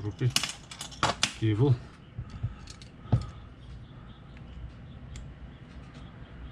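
Small clicks from handling a GoPro Hero13 Black camera and a USB-C cable, with one sharp click about three seconds in as the cable is plugged into the camera's side charging port.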